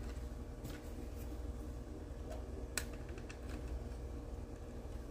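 Light clicks and taps of plastic model-car parts as the chassis is handled and pressed into the body, the sharpest click just before three seconds in, over a low steady hum.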